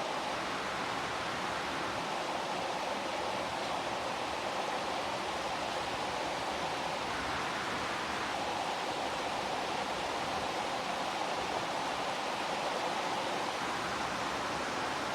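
Steady, heavy rain falling, an even hiss with no breaks.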